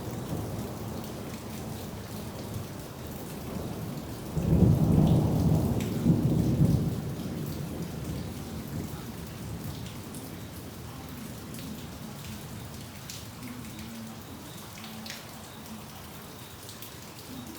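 Steady rain falling and pattering, with a roll of thunder about four seconds in that rumbles low and loud for about three seconds, then dies away.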